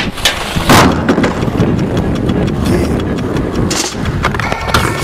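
Skateboard wheels rolling over asphalt and ramps, with several sharp clacks of the board hitting ramp and ground; the loudest clack comes just under a second in.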